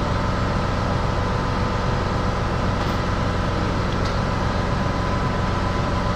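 A steady mechanical hum that holds several tones and does not change.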